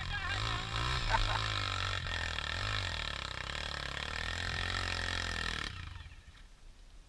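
Dirt bike engine running at low revs, its pitch wavering with small blips of the throttle, falling away about six seconds in.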